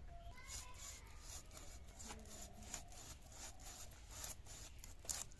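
A whole Japani puti fish (silver barb) being scaled on a boti, its body drawn against the upright curved blade in quick, even scraping strokes, about three a second, that rasp the scales off.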